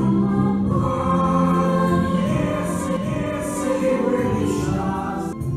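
Stage musical music: a choir singing long held notes over an accompaniment.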